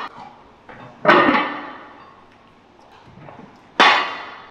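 Two loud, sudden slams, one about a second in and one near the end, each ringing out over about a second.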